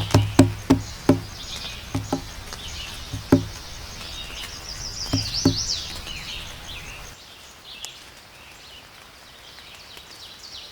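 Birds chirping and whistling over a run of low, ringing knocks that slow and fade out. After about seven seconds only faint bird chirps remain.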